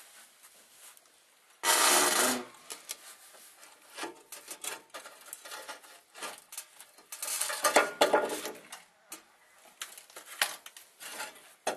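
Broken, rusty Dodge Ram 3500 transmission mount scraping and clunking against the steel crossmember as it is worked out by hand: an irregular run of metal knocks and scrapes, loudest about two seconds in and again around eight seconds in.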